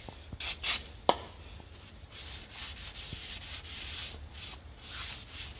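Two short hisses of brake cleaner sprayed onto a new brake disc, a sharp click, then a cloth rubbed and wiped back and forth over the disc face to clean it.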